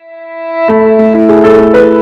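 Background music: a new track begins softly with sustained notes and comes in at full level with chords about two-thirds of a second in.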